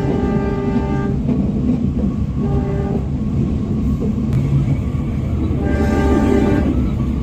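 Indonesian diesel locomotive's air horn sounding the Semboyan 35 warning signal: a multi-note blast that ends about a second in, a short one, and a longer one about six seconds in, over the train's steady rumble.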